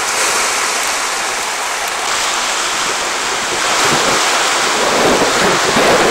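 Steady rushing of sea surf mixed with wind buffeting the microphone, growing rougher and louder in the second half.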